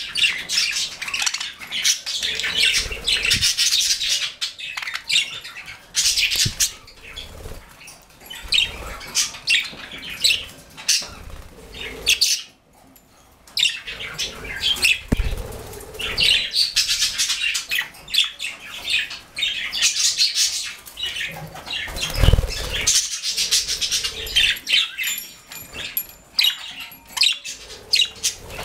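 Male budgerigar warbling: a long, rapid run of scratchy chatter and clicks with short pauses, the longest about twelve seconds in. A couple of low thumps come partway through.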